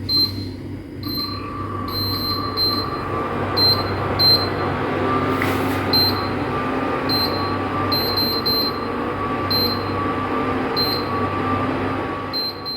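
Steady machine hum and whirr with a constant whine, overlaid by short high-pitched beeps at irregular intervals.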